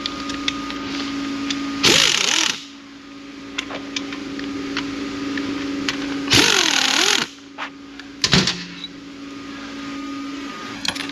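Two loud bursts of compressed air from a blow gun, about two seconds in and again about six seconds in, over a steady machine hum. Light clicks of metal parts are scattered through it.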